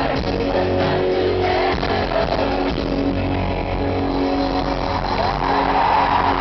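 Live pop band music in a concert hall, recorded from within the audience, with long held chords under the beat.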